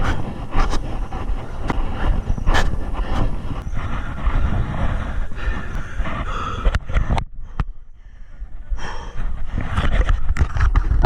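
Riding noise from a moving mountain bike: steady wind rumble on the microphone with irregular knocks and rattles from rough ground. It drops briefly about two-thirds of the way through.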